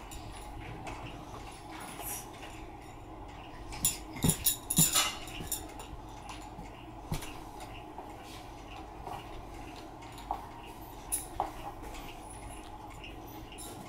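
A child handling a plastic steam iron on a bed, making scattered clicks and light knocks over a steady low hum. The loudest is a quick cluster of knocks about four to five seconds in.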